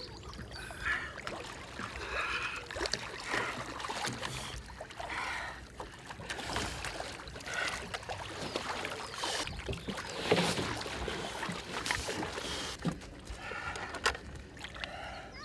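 A person swimming, water splashing with each stroke in an uneven rhythm about once a second.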